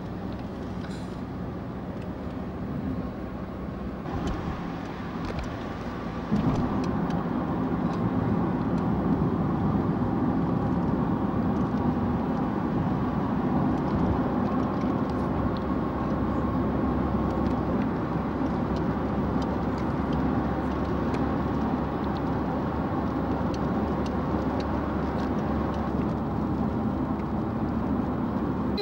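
Road and engine noise heard inside a moving car's cabin, a steady rumble and hiss that gets suddenly louder about six seconds in and then holds level.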